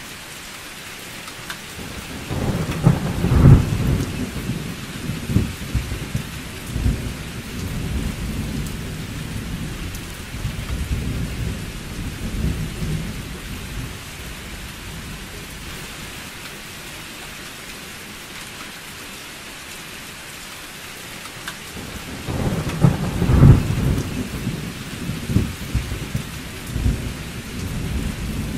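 Summer thunderstorm: steady rain hissing, with two long rolls of thunder. The first builds about two seconds in and rumbles on for around ten seconds; the second starts a little after twenty seconds in and is still rumbling at the end.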